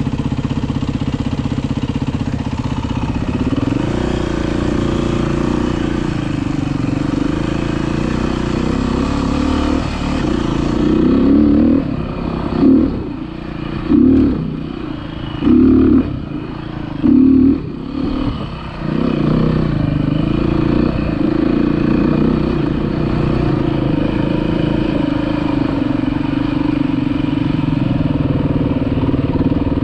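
Dirt bike engine running under way on a trail, its pitch rising and falling with the throttle. About halfway through, four quick throttle bursts in a row, about one every second and a half.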